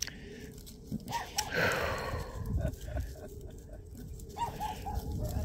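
Puppies giving a few short, faint whimpers, with a rustle about one and a half seconds in.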